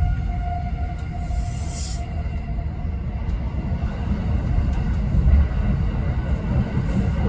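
E217 series electric commuter train running, heard from the upper deck of a bilevel Green car: a steady low rumble of wheels on track, with a faint motor whine that fades out over the first couple of seconds and a brief hiss about a second in.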